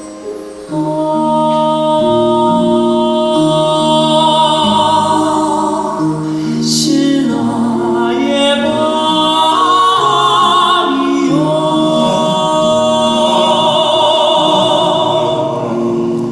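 Male vocal quartet singing in harmony: long held notes with vibrato in the upper voices over lower parts moving in steps.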